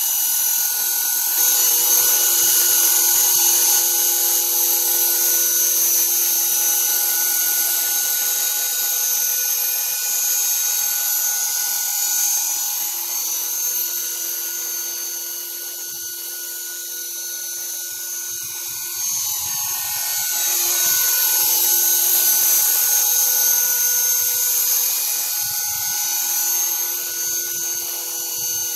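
Small RC quadcopter's electric motors and propellers whining at a high pitch as it hovers and flies low. The pitch shifts as the throttle changes, sweeping down and back up about two-thirds of the way through.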